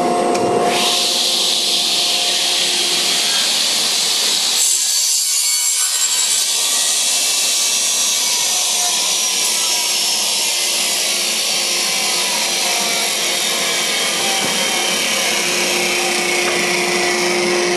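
Holytek D405M Plus sliding-table panel saw cutting a wooden board with its blade tilted to 45 degrees. The steady running hum of the saw jumps about a second in to a loud, high-pitched cutting noise as the blade enters the wood, and the noise carries on. The hum shows through again near the end.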